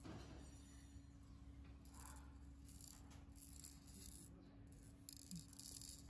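Faint rattling of a plastic baby rattle toy being shaken in several short bursts.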